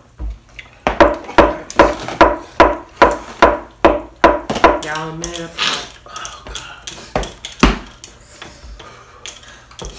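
A person in pain from very spicy noodles makes a quick run of about a dozen sharp, rhythmic beats, roughly three a second, then a wavering vocal cry about five seconds in, with one more sharp knock near the end.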